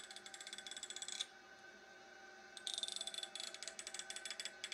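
Rapid, high-pitched ratcheting clicks of a comb's teeth being strummed, a sound said to make cats gag. The clicking stops about a second in and starts again a second and a half later.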